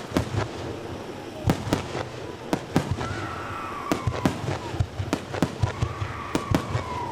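A fireworks display with shells bursting in quick succession, sharp cracks and bangs several times a second, along with long whistling tones that rise and fall in pitch.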